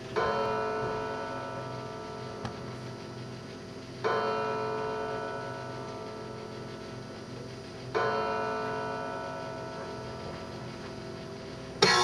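A bell tolling three times, about four seconds apart, each stroke ringing on and slowly fading. Just before the end, music with strummed guitar comes in loudly.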